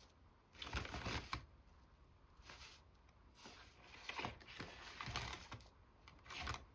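Plastic marker barrels clicking against each other and rustling in a fabric pencil case as a hand rummages for the next pen. The clicks come in scattered, irregular bunches.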